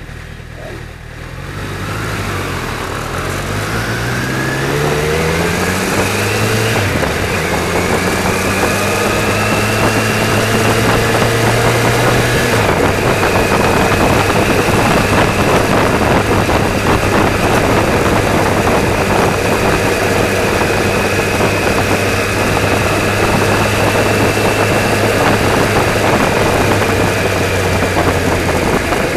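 Car engine heard from inside the cabin, pulling away and accelerating, its pitch rising and dropping back at a few gear changes. It then settles into steady cruising with continuous road and tyre noise.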